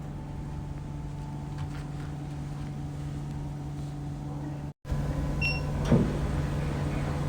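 Steady electrical hum of a red-light therapy panel running after being started, with a short electronic beep about five and a half seconds in.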